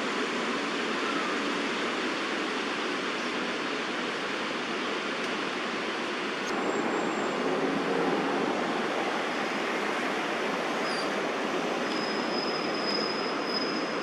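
Steady hum of distant city traffic, with a thin high note sounding near the end.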